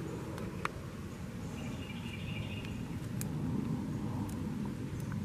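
Woodland ambience: a low steady rumble with a few faint clicks and rustles of leaves being handled, and a faint high note about two seconds in.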